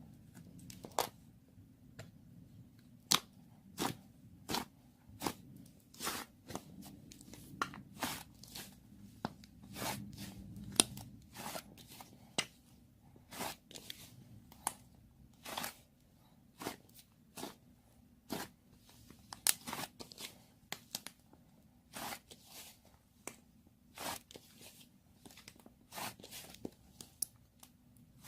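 Slime being squeezed and handled, giving sharp crackling clicks and pops at an irregular pace of about one or two a second.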